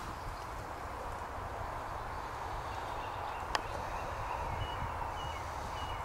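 Woodland background with a low flickering rumble on the microphone, one sharp snap about three and a half seconds in, and a few faint, short, high bird chirps near the end.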